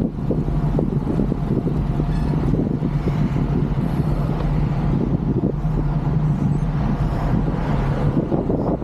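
Heavy wind noise on the microphone of a moving bicycle, over a steady low rumble.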